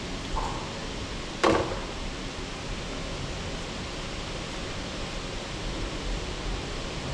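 Steady hiss of workshop background noise, broken once about a second and a half in by a single sharp knock that rings briefly, with a fainter tap just before it.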